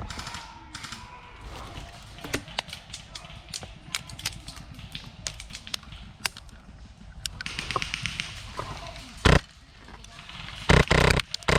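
Airsoft guns firing around the player: scattered single cracks and a rapid run of shots a little past the middle, with a few loud knocks near the end.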